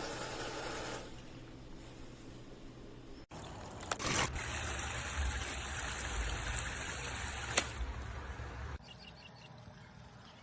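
Water trickling from a toy play sink's battery-powered electric faucet into its basin, with a short sharp clatter about four seconds in and a click near the end. The sound shifts in level abruptly a few times.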